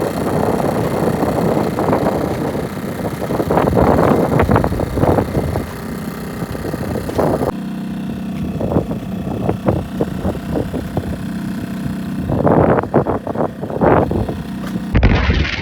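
Wind buffeting the microphone in irregular gusts, with a faint low steady hum underneath.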